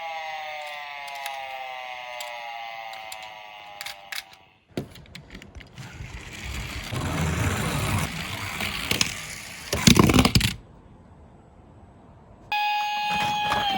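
A toy emergency-vehicle siren wails with slowly falling pitch and fades out over the first four and a half seconds. Toy minicars then roll down a slope with a rattling rumble that grows louder, with a few loud clacks about ten seconds in. After a short lull, a new toy siren tone starts suddenly near the end.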